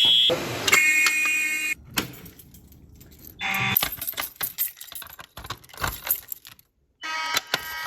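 Fire alarms sounding in short bursts of steady electronic tone, broken up by sharp metallic clicks and rattles. The sound cuts out abruptly for a moment near the end, then another alarm tone comes in.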